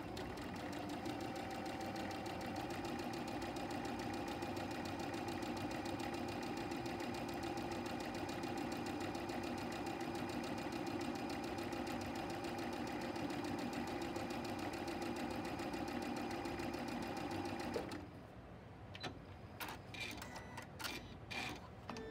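Electric domestic sewing machine running steadily as it stitches fabric through a paper foundation, stopping suddenly about eighteen seconds in. A few short clicks and rustles follow as the paper block is lifted off the machine.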